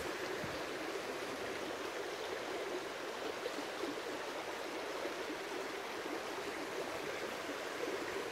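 Small woodland stream rushing steadily over rocks in a shallow riffle.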